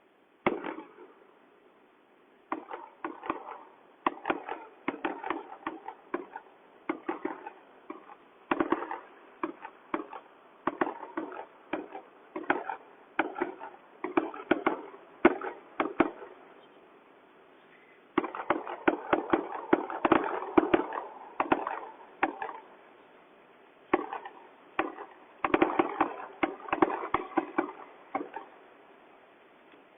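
New Year's fireworks and firecrackers going off: many sharp bangs at irregular intervals, with dense runs of rapid crackling about two-thirds of the way through and again near the end.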